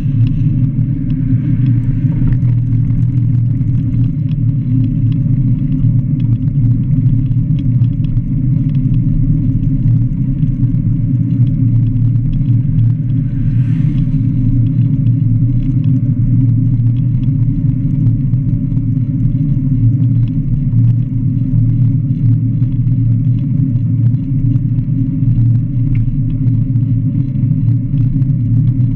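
Steady low wind rumble buffeting the microphone of a camera on a moving recumbent cycle, mixed with tyre noise on the asphalt. A vehicle passes close by about halfway through.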